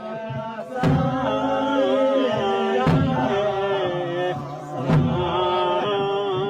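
Background music: a slow, held melody over a drum struck about once every two seconds.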